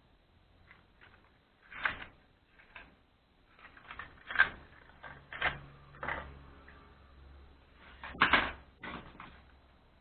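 Hand tools and parts clicking and knocking, a dozen or so separate short knocks at irregular intervals, while a spark plug is being changed.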